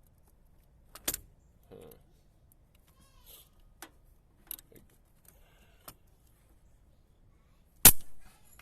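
Bench test of an Onan generator starter motor: two sharp electrical snaps, one about a second in and a louder one near the end, with faint ticks between. The motor never settles into a steady run, as fits a starter that has stopped working.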